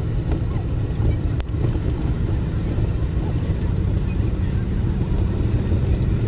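Steady low rumble of a Maruti Gypsy's engine and road noise heard inside its cabin while cruising at highway speed.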